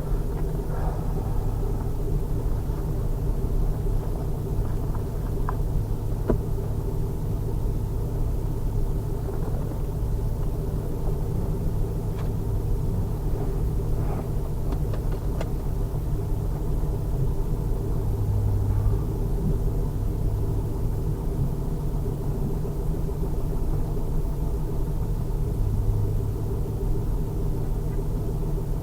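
The 2000 Pontiac Trans Am Firehawk's 5.7-litre LS1 V8 running steadily with a low rumble, its engine speed holding constant without revving.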